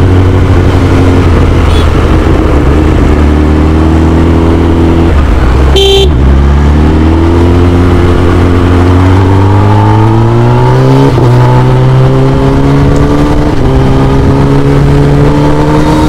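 Kawasaki Ninja ZX-10R's inline-four engine with an Akrapovic full-system exhaust, under way: the engine note rises slowly, drops back about five seconds in and again about eleven seconds in, and climbs again each time. A vehicle horn beeps briefly about six seconds in.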